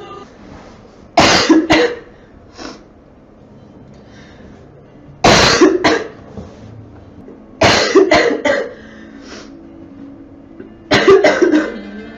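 A girl coughing in four short bouts of one to four coughs each, a few seconds apart: about a second in, about five seconds in, about eight seconds in, and about eleven seconds in.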